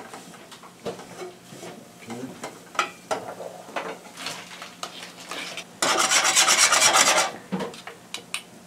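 Metal spoon stirring a flour-and-oil roux in a stainless steel saucepan, scraping the pot bottom in soft scattered strokes. About six seconds in comes a loud burst of rapid, even scraping strokes lasting over a second.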